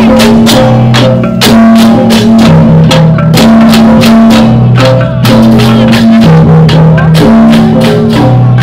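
Balinese processional gamelan: a fast, steady run of metallic strikes, about three or four a second, over held low gong tones that change pitch roughly once a second.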